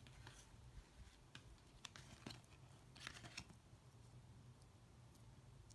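Faint clicks and brushing of oracle cards being laid down and slid on a wooden tabletop, a handful of short taps in the first three and a half seconds, then only a low steady room hum.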